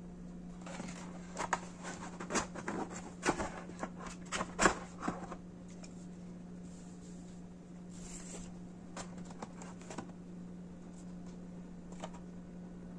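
Handling noise as a smartphone gimbal stabilizer is lifted out of its molded plastic packaging tray: a quick run of clicks and light knocks over the first five seconds, then a few scattered taps. A steady low hum runs underneath.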